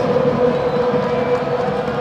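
Crowd noise from a packed football stadium terrace, with one steady held tone running through it.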